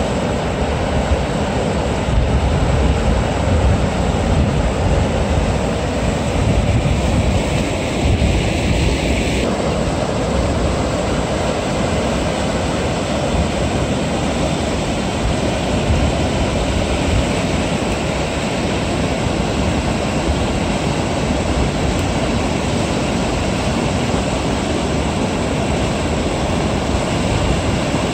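River water rushing steadily over a low weir, a continuous loud noise.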